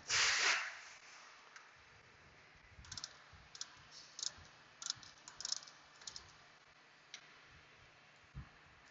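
Metal hand tool clicking against a brake caliper in short, irregular bursts as its pistons are pressed fully back in, with a brief rush of noise at the very start and a single dull knock near the end.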